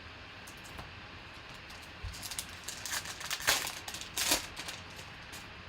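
Crinkling and rustling of a foil trading-card pack wrapper being handled and torn open, with the cards slid out: a quick run of sharp crackles starting about two seconds in, loudest around the middle.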